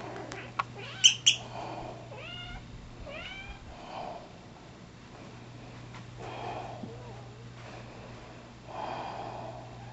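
Young black Bombay-type cat giving a few short chirping meows that rise in pitch, carrying a toy in her mouth the way a mother cat carries a kitten. About a second in, two short sharp squeaks from a squeaky toy, the loudest sounds.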